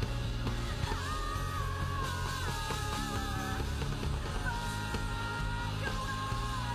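A female lead vocalist belting long, held high notes, some with vibrato, over a live pop-rock band with drums and keyboards.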